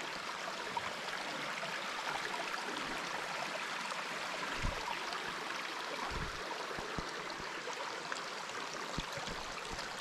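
Steady rushing of a small forest stream flowing, with a few soft thumps in the middle.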